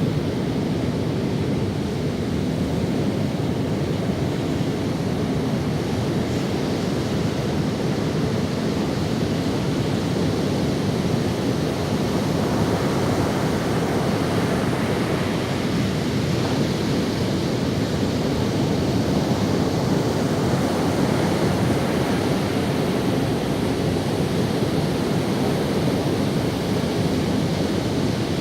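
Ocean waves breaking and washing up on a sandy beach, a steady surf noise that swells slightly about halfway through.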